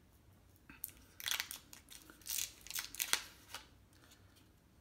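Paper liner being peeled off a Reese's peanut butter cup, crinkling and tearing in several short bursts.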